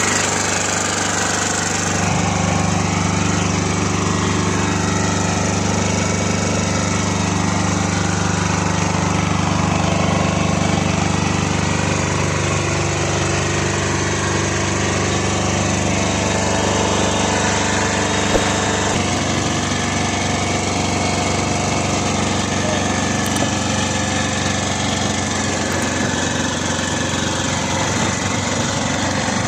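Lister Petter 5 kVA silent diesel generator's engine running, a steady drone at constant speed.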